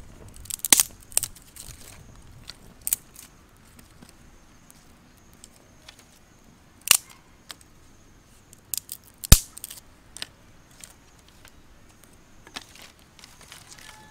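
Dry twigs snapping and cracking as they are broken and laid on a small wood fire between stones: about a dozen irregular sharp cracks, the loudest about a second in, near seven seconds and near nine seconds. A faint, thin, high insect drone comes and goes behind them.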